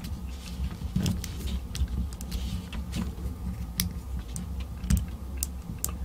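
Letter dials of a combination cable bike lock clicking as they are turned one letter at a time and the lock is tugged apart, in irregular sharp clicks.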